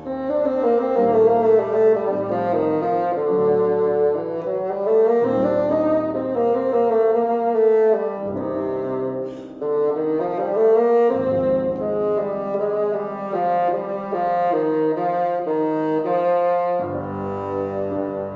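Bassoon playing a slow, expressive solo with vibrato on the longer held notes and flowing runs between them, over piano accompaniment.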